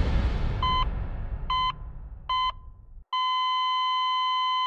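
Heart-monitor sound effect: three short beeps about a second apart, then a steady flatline tone from about three seconds in. A fading noise under the beeps cuts off just before the flatline.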